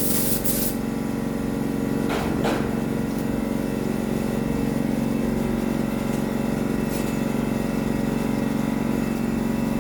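Air compressor running with a steady hum, after the hiss of a paint spray gun stops less than a second in.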